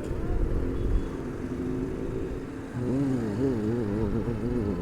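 Engine rumble of vehicles idling and creeping in dense traffic. From about three seconds in, a pitched tone warbles up and down until near the end.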